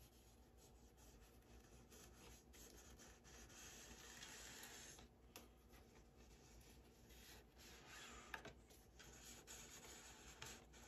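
Faint rubbing of a small encaustic painting iron's hot soleplate sliding over wax-coated card, spreading melted wax, with a few soft swells of scraping.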